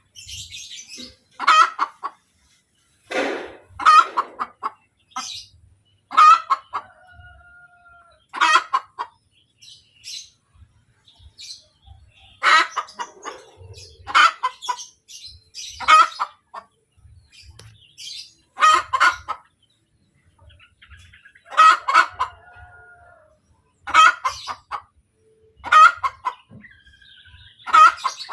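Hen cackling after laying an egg: a loud call about every two seconds, a few of them ending in a drawn-out note.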